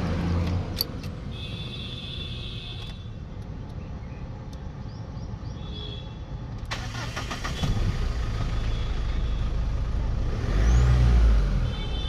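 Electronic beeps, then the Mahindra Scorpio is started with a freshly copied ID46 transponder key. About seven seconds in the starter cranks and the engine catches and runs, with a brief rev near the end. The engine staying running shows that the immobiliser accepts the cloned key.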